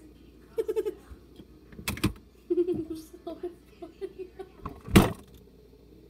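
A child giggling in short bursts of laughter, with two sharp thumps about two seconds and five seconds in, the second the loudest.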